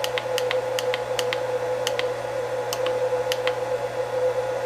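Buttons on a Huanyang VFD's keypad clicking as they are pressed over and over to step through parameter numbers, a run of quick clicks that often come in pairs. A steady electrical hum runs underneath.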